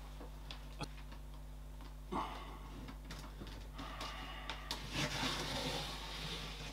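Light plastic clicks, taps and scuffs of small plastic invertebrate enclosures being handled and slid into place on a shelf. There is a sharper knock a little under a second in, and the rubbing and clicking grow busier in the second half. A faint steady hum sits underneath.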